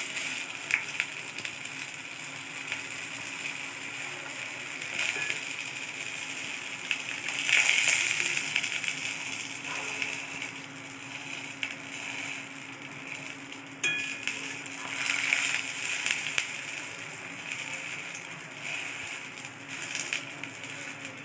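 Rice paper rolls frying in hot oil in a steel kadai: a steady sizzle that swells now and then, with the occasional scrape and tap of a steel spatula against the pan.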